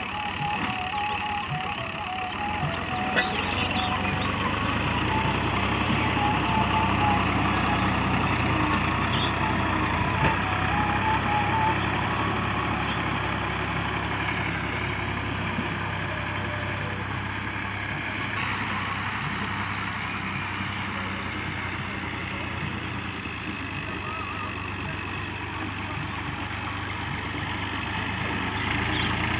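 Al-Ghazi farm tractor's diesel engine running steadily under load as it pulls a disc harrow through the soil.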